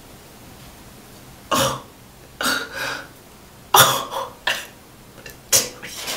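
A woman's short, breathy cries and gasps of pain, about half a dozen bursts, wrung out of her by pulling hair-removal gel off her armpit.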